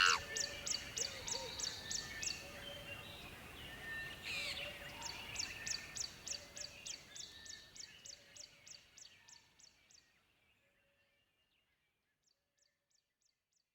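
Jungle ambience: a fast, regular high-pitched chirping, faint scattered bird calls and a soft hiss, fading out to silence about ten seconds in. Faint high chirps return near the end.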